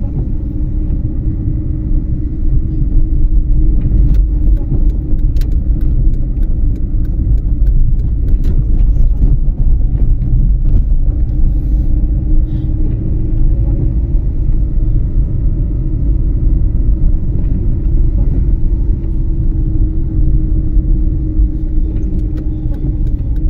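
Car driving on a wet road, heard from inside the cabin: a steady low rumble of engine and tyres, with an engine hum that rises and falls slightly and scattered light ticks.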